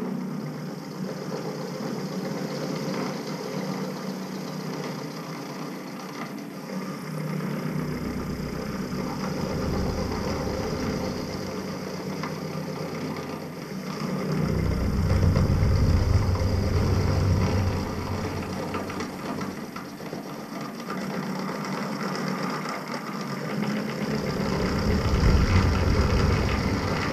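Milling machine running with an end mill cutting into an aluminium block, clearing out a water jacket pocket between drilled holes. The cut grows louder and deeper in three stretches of a few seconds each: about a third of the way in, around the middle, and near the end.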